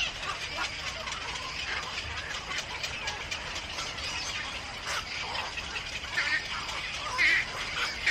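Birds calling with many short chirps, several overlapping, and a few louder calls near the end.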